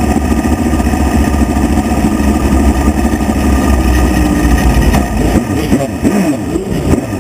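Midget race car engine heard from its own onboard camera, running hard on a dirt oval. Near the end the engine note dips and its pitch rises and falls several times.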